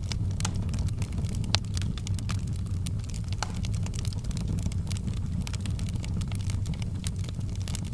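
Fire burning in a fireplace, crackling with frequent irregular sharp pops over a steady low rumble; one pop about a second and a half in stands out.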